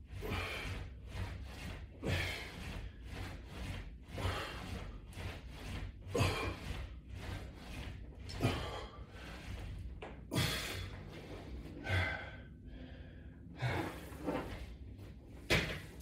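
Ab roller exercise: hard breaths and the roller's wheels rubbing over a rubber floor mat, repeating about every two seconds with each rollout, with a few light knocks.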